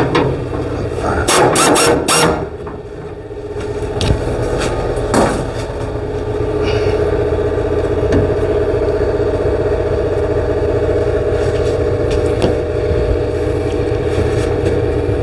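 A few loud clattering knocks in the first couple of seconds, then an engine running steadily.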